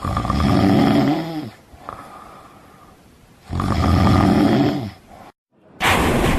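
A person snoring: two long, loud snores a few seconds apart, each with a rasping pitched drone that drops in pitch as it ends, and a quieter breath between them. Just before the end a different noisy sound cuts in.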